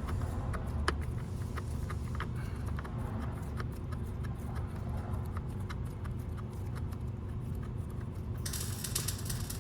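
Light clicks and knocks of seat bolts and hand tools being handled while the rear seat bolts are put in, over a steady low hum. A brief rasping noise comes near the end.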